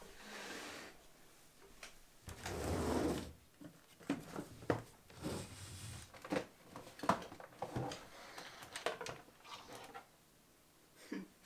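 A wooden cabinet door opened, then rummaging on its shelf: a scraping rustle about two seconds in, followed by a run of irregular knocks and clicks as things are shifted and an old computer keyboard is pulled out.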